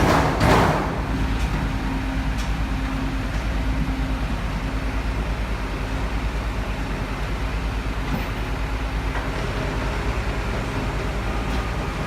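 A machine running steadily with a low rumble and a faint hum, its loudness pulsing evenly, after a few knocks die away in the first second.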